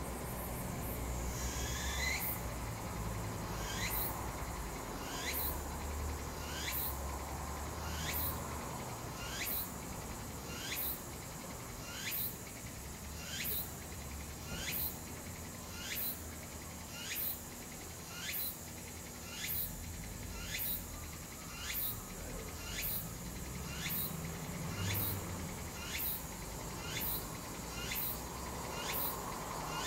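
Cicada calling: a short, high call, each falling in pitch, repeated at an even pace of about one a second.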